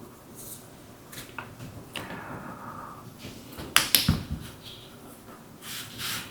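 Handling noises of a small metal flashlight turned in the hands: light rubbing and scattered small clicks, with a quick cluster of sharp clicks about four seconds in.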